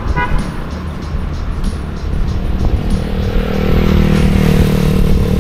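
A motor scooter's engine running close by, steady from about three seconds in, over a constant low wind rumble on the microphone of a moving bicycle. A quick double horn beep sounds right at the start.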